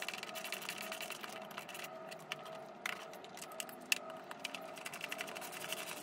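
Milwaukee ratcheting screwdriver clicking in quick runs as screws are driven into wall plugs, with one sharper click about four seconds in.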